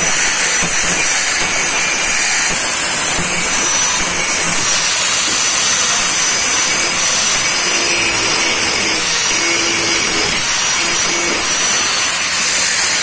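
Electric angle grinder running at speed, its disc grinding down a weld bead on a thin steel pipe, with a steady high whine.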